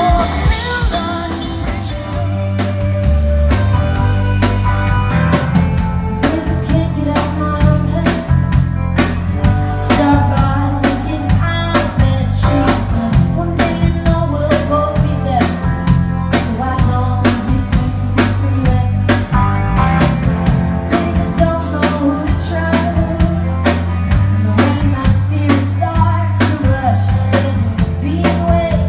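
Live rock band playing, heard from the audience: a steady drum-kit beat, bass and electric guitars, with singing. About two seconds in the music cuts from one band's song to another's.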